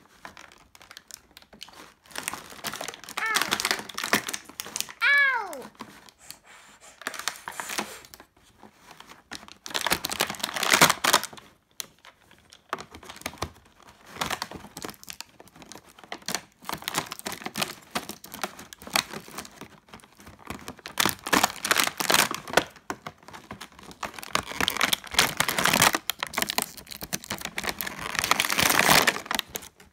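Clear plastic blister-pack tray being handled and pressed, crinkling and crackling in repeated irregular spells.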